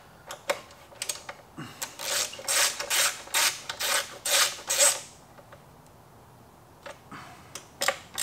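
Hand ratchet turning a bolt on a motorcycle's licence-plate bracket: a run of about eight short rasping strokes, roughly three a second, from about two to five seconds in. A few small clicks of the tool come before and after the run.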